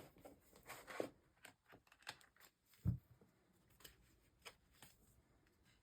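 Paper planner inserts and pages being handled: scattered soft rustles and light clicks, with one dull thump about three seconds in.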